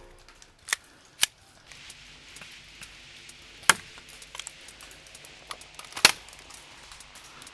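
Scattered airsoft gunfire: four sharp single snaps at uneven intervals, with fainter ticks between them.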